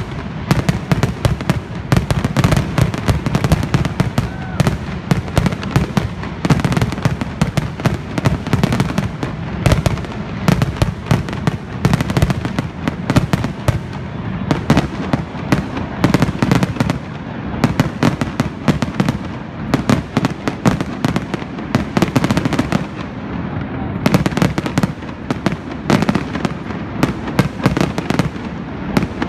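Aerial fireworks shells bursting in quick succession: a dense run of bangs, several a second, almost without a break.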